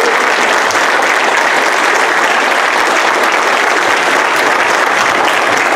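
Congregation applauding, many hands clapping at a steady level.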